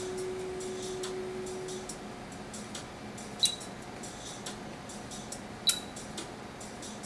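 Light clicking of an HP/Agilent 33120A function generator's front-panel keys being worked through its menus, with two sharper clicks, each with a short high ring, about three and a half and five and a half seconds in. A faint steady tone runs for the first two seconds and then stops.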